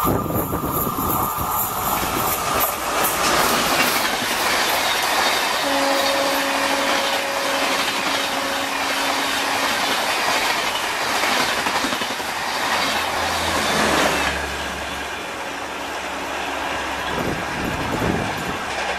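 Electric-hauled express passenger train passing close by at speed: a dense, steady rush of noise with the wheels clattering over the rail joints. A steady tone rides on top for a few seconds midway.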